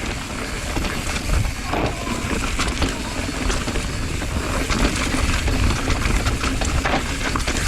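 Mountain bike descending a loose, dusty trail: tyres crunching and sliding over loose dirt and rock, with many quick knocks and rattles from the bike, over steady low wind rumble on the camera's microphone.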